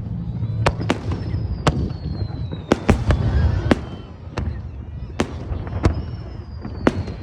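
Fireworks display: about a dozen sharp bangs of shells bursting at irregular intervals over a steady low rumble, with a long, slowly falling whistle heard twice.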